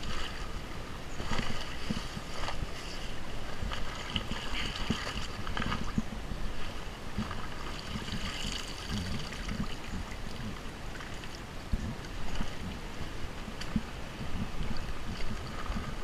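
Footsteps wading through a shallow brook: irregular splashing steps in the water, with a running stream underneath.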